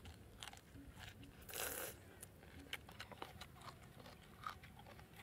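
Close mouth sounds of a man biting and chewing a raw green chili: small crisp crunches and chewing, with one louder, longer crunch about a second and a half in.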